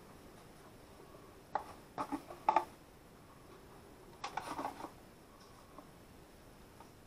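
Plastic parts of a handheld sandblaster gun clicking and knocking as its hopper is handled and fitted on, in three short bursts of clatter.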